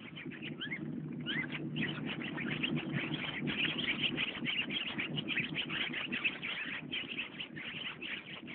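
Many small birds chirping, a dense run of quick rising chirps that thickens about a second in, over a low steady drone.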